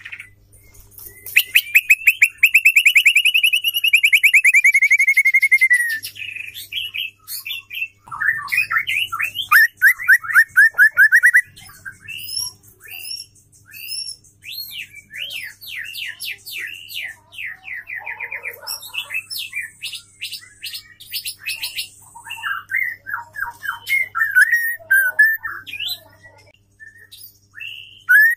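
Female white-rumped shama singing: a long, fast rattling trill in the first few seconds, then varied whistled phrases and quick runs of sweeping notes.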